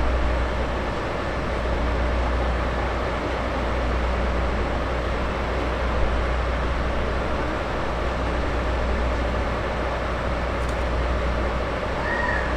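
JNR Class DE10 diesel-hydraulic locomotive running at low speed as it pulls slowly into the platform, a steady low engine rumble with general rail and station noise over it. A brief high squeal comes near the end.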